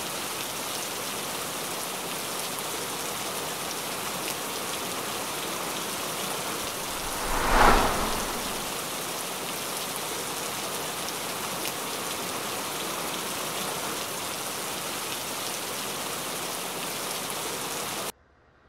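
Steady heavy rain, with one louder swell that rises and fades over about two seconds, a little over seven seconds in. The rain cuts off abruptly near the end.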